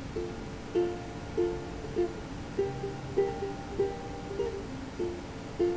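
Background music: a plucked-string tune with evenly spaced notes, about one every 0.6 seconds.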